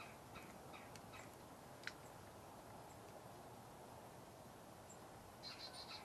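Faint outdoor hiss with small songbirds giving short high chirps, a single sharp click about two seconds in, and a quick run of high chirps near the end.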